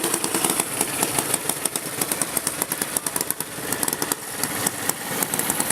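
Racing lawn mower engines running hard, fading a little about halfway and growing louder again near the end.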